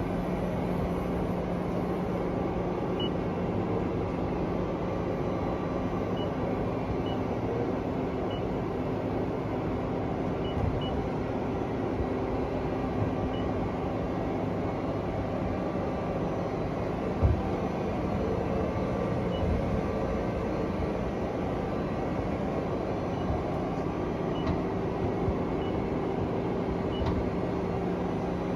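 Steady machine hum of a Mori Seiki ZT 2500Y CNC lathe under power, with faint short high beeps now and then. A few soft knocks stand out, the loudest about 17 seconds in.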